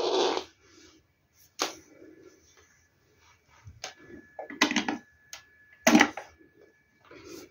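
Several separate plastic clicks and knocks of hands handling a small portable power station, the loudest near the start and at around five and six seconds as a mains plug is pushed into its AC socket.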